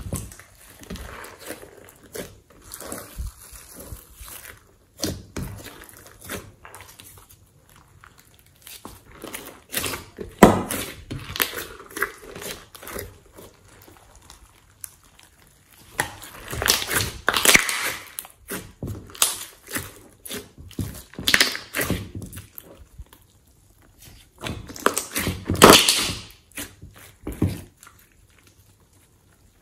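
Glossy slime being squished, stretched and folded by hand in a glass dish, giving irregular sticky clicks and pops, with several louder clusters of popping.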